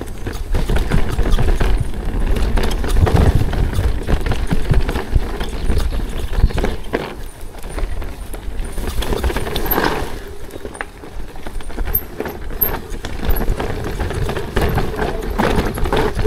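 Mountain bike riding over a rocky trail: tyres, chain and frame rattling and knocking irregularly over rocks, with wind rumble on the action camera's microphone.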